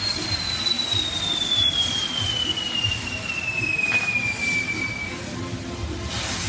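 Castillo fireworks wheel burning with a constant hiss and a long pyrotechnic whistle. The whistle starts high and falls slowly and steadily in pitch, then stops about five seconds in. A few sharp pops go off over it.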